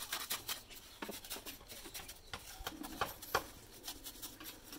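Steel mason's trowel scraping and tapping wet cement mortar against a brick wall: a run of irregular sharp scrapes and clicks, the loudest a little past three seconds in.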